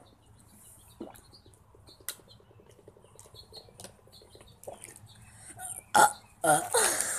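Quiet swallowing and gulping from a plastic water bottle being drunk fast, with faint small clicks. About six seconds in the bottle comes down and there is a loud burp, followed by loud voice sounds near the end.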